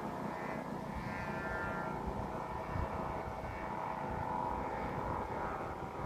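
Kite flutes droning high in strong wind: several steady whistling tones sound together without a break. Wind rumbles on the microphone underneath.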